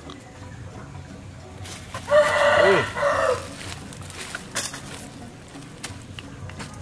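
A rooster crowing once, a single call of just over a second about two seconds in. A few light knocks follow later.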